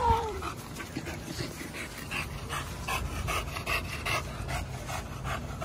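American bully dog panting, about three quick breaths a second, with a short whine falling in pitch right at the start.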